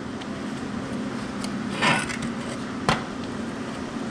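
Workshop handling of metal parts: a brief scrape about two seconds in and a single sharp knock about a second later, over a steady low hum.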